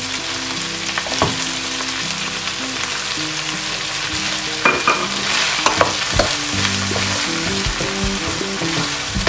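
Frozen peas and corn sizzling in hot butter in a nonstick frying pan while a wooden spatula stirs them. The spatula scrapes and knocks against the pan more often from about halfway through.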